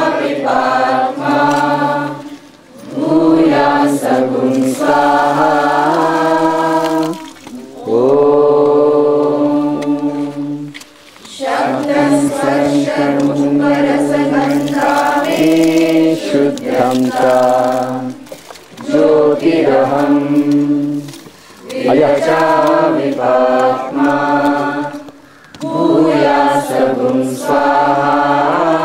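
Voices chanting Vedic Sanskrit mantras together, in long held notes grouped into phrases a few seconds long with brief breaks between them.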